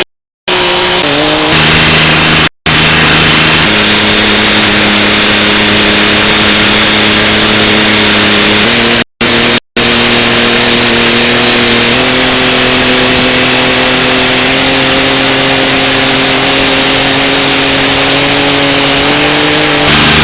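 1970 Ford 3000 diesel tractor engine running loud and fast, its pitch stepping up and down several times as the throttle changes, broken by a few short silent gaps.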